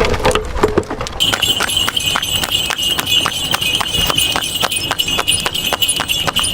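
Small electric motor of a miniature homemade machine running with a high whine and a regular clicking of about four clicks a second, starting about a second in.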